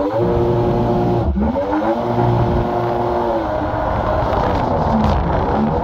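Mini jetboat's two-cylinder two-stroke engine revving hard: the pitch climbs, dips sharply and climbs again about a second and a half in, holds high, then drops back to a lower, uneven speed about four seconds in.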